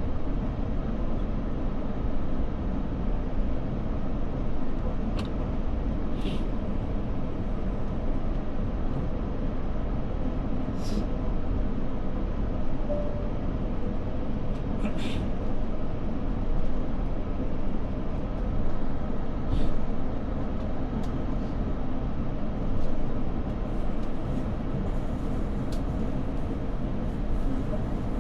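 Steady low rumble of cabin noise inside a jet airliner, with a few sharp clicks and taps scattered through it.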